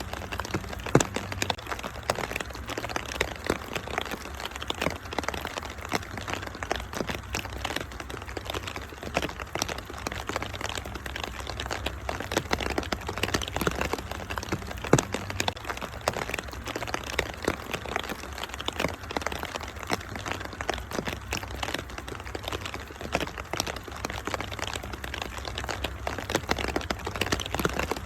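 Wood fire crackling, with frequent sharp pops and snaps, over a steady rain patter and a low steady rumble.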